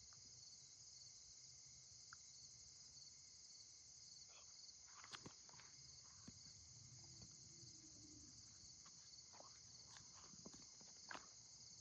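Faint chorus of crickets chirping steadily, with a few soft scattered clicks and rustles.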